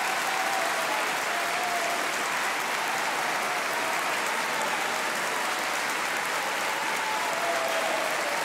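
Large audience applauding, a steady, sustained wash of clapping.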